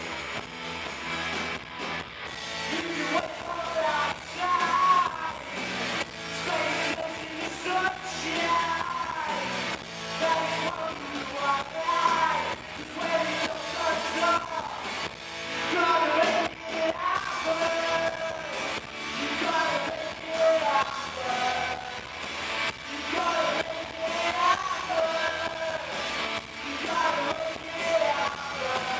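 A live rock band playing: two electric guitars, bass guitar and drum kit, with a male lead vocalist singing over them from about three seconds in.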